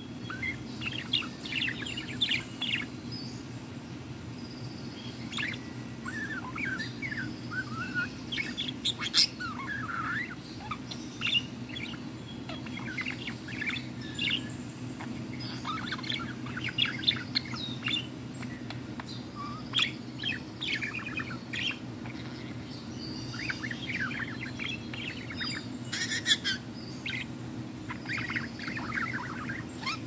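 Female budgerigar chattering and warbling: quick runs of chirps and trilling notes in spurts every second or two, with short pauses between.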